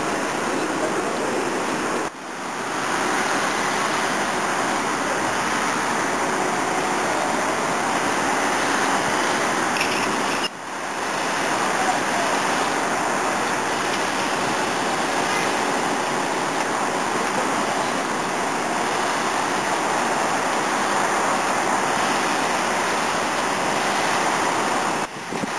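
Steady rushing outdoor noise with no distinct events, such as distant city traffic heard from high up. It drops suddenly and briefly about 2 s in, again about 10 s in, and near the end.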